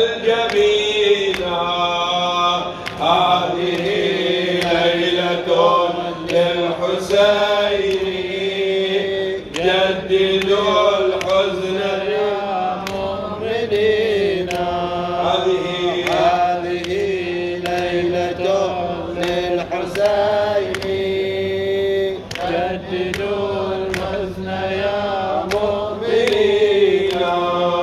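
A man's solo voice chanting a Shia noha (mourning elegy) into a microphone, in long held, gliding melodic lines with short breaks for breath. Sharp beats recur behind the voice about once a second.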